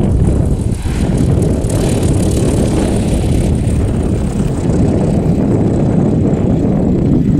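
Strong wind rumbling on the microphone together with a propeller aircraft's engine running, with a hiss swelling and fading about two to three seconds in.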